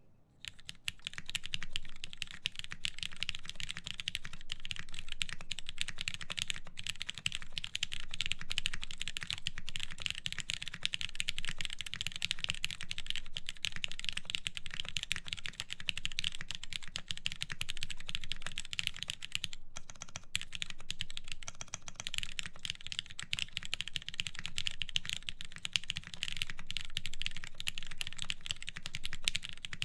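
Continuous, dense typing on a mechanical keyboard: a Merisi Works Ottantaquattro prototype with Cherry MX Black linear switches lubed with Krytox 205g0, in a full aluminium plate, under DCS keycaps. The typing starts about half a second in and pauses briefly about two-thirds of the way through.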